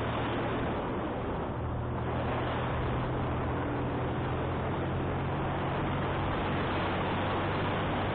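Heavy wind rush on the microphone of a moving motorcycle, with the engine running steadily underneath; its pitch shifts slightly about two seconds in.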